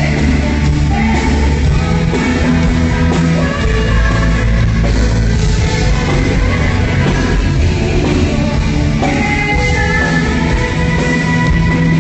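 Live rock band playing through a PA system, with women singing lead vocals into microphones.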